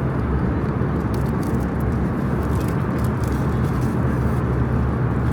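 Airliner cabin noise in flight: a steady roar of engines and rushing air with a low hum, and a few faint light clicks.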